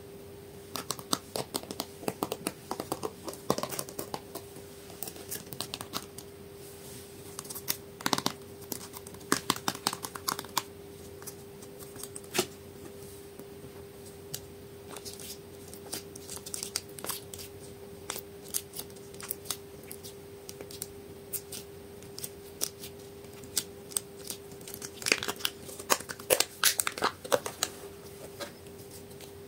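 Sticky, irregular crackles and clicks of slime and plastic cups being handled, coming in clusters with quieter stretches between and busiest near the end, over a faint steady hum.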